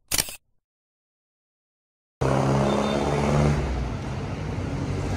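A brief burst of noise, then silence, then about two seconds in, night-time city street noise cuts in suddenly, with a steady low engine hum.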